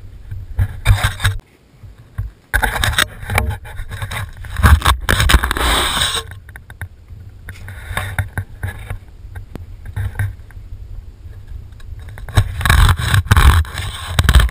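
Fillet knife slicing and scraping through salmon fillets on a carpet-covered board, in irregular bursts of scraping with a low rumble from the knife being handled. The longest burst runs from about two and a half to six seconds in, with weaker strokes after it and loud scraping again near the end.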